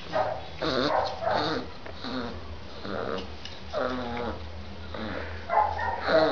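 34-day-old bull terrier puppy yipping and growling in a string of short, high calls, some falling in pitch.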